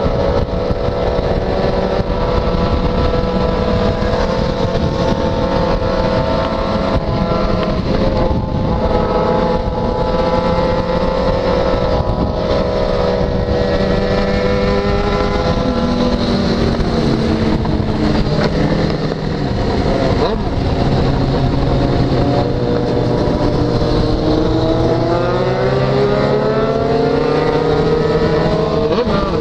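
Yamaha XJ6's 600 cc inline-four engine running through a de-baffled open exhaust under way, over steady wind rush. The engine pitch holds fairly steady, drops a little past halfway, then climbs steadily through the last third as the bike accelerates.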